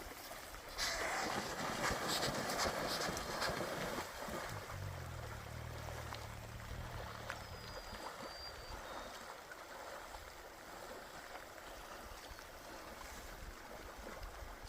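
River water flowing steadily, louder for the first few seconds. A low hum runs for about three seconds in the middle, and a short high whistle sounds over it.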